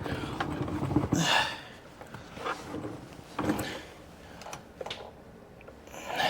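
Light metallic clicks and knocks of a hand wrench working the driveshaft bolts, scattered and uneven, with two short rustles of movement about one and three and a half seconds in.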